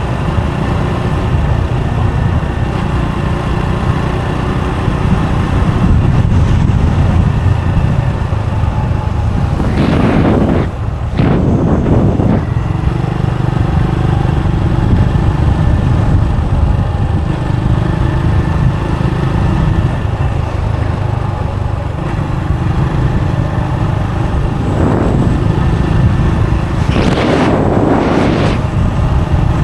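Motorbike riding along a road, its engine running steadily under a heavy low rumble of wind on the microphone. Two louder rushing sounds rise and fade, about ten seconds in and again near the end.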